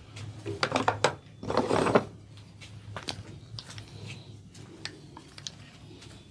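Hands massaging an oiled head: a loud bout of rubbing through the hair about a second in, with sharp clicks and taps scattered through the rest.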